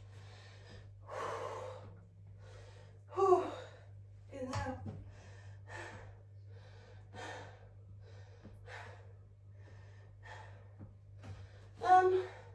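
A woman breathing hard in gasps and short grunts, about one every second or two, straining as she hauls a heavy roll of lino up the stairs.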